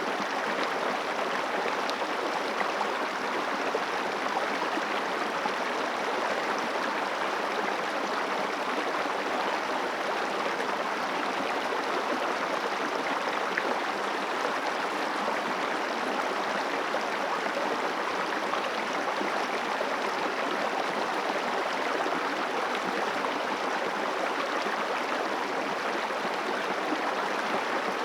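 River water flowing, a steady, unbroken rush of running water.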